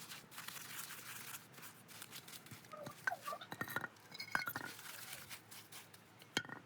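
Scattered light metallic clinks and taps at irregular intervals, some with a short ring.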